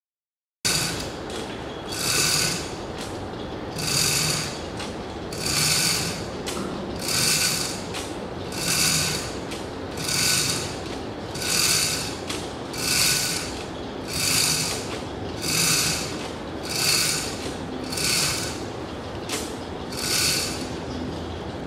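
Pulley and hand-winch gear squeaking in a regular rhythm, about one squeak every second and a half, as the hanging metal cone is lowered on its line.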